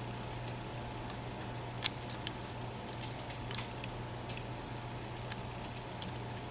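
A lock pick clicking and ticking faintly against the sliders inside an EVVA ICS lock while slider 4 is being set, with a few sharper clicks about two seconds in, at three and a half seconds and near the end, over a steady low hum.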